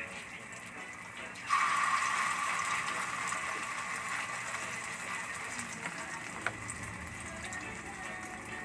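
A cooking pan hisses suddenly about a second and a half in, then slowly fades, with a single sharp click a few seconds later.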